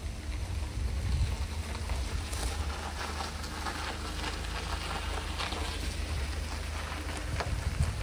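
Steady low rumble of wind on the microphone, with irregular scattered crackles over it.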